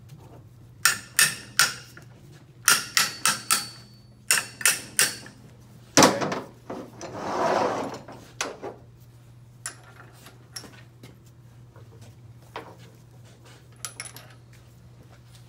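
Metal tools and a steel puller knocking and clanking against a metal workbench and CVT pulley, in quick runs of three or four sharp knocks, with the loudest clank about six seconds in. A short scraping sound follows, then a few light ticks.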